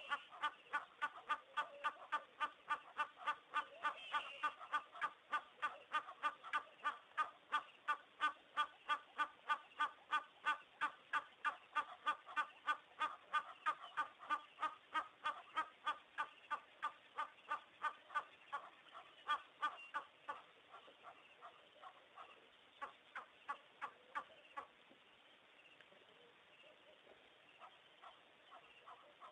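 A long, regular series of short animal calls, about three a second, that weakens after about 20 seconds and dies out near the end.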